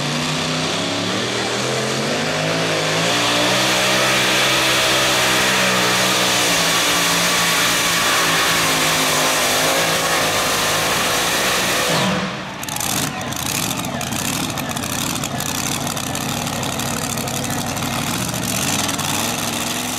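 Engine of a 6,200-pound two-wheel-drive pulling truck revving up as it launches, then running at full throttle while it drags the weight-transfer sled. About two-thirds of the way through, the engine sound drops suddenly, then continues at a rougher, steady level.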